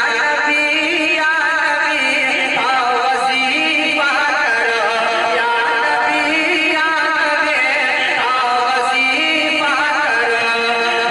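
A man singing a naat, an Urdu devotional poem, into a microphone, drawing out long held notes with wavering ornaments.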